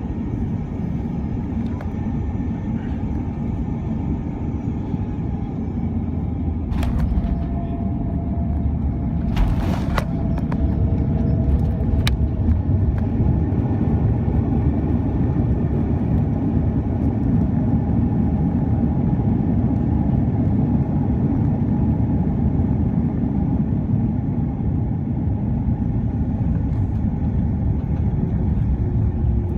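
Steady low rumble of an Airbus A330-300 cabin in flight, the engine and airflow noise of its Rolls-Royce Trent 772B engines. A few brief clicks come about 7 and 10 seconds in.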